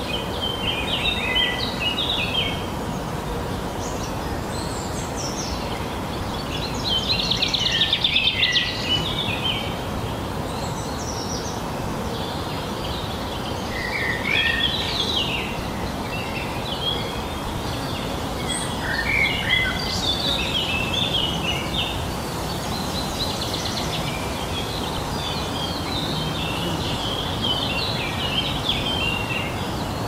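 Songbirds singing in short, repeated phrases over a steady background hiss of outdoor noise. The loudest is a fast, even trill about eight seconds in.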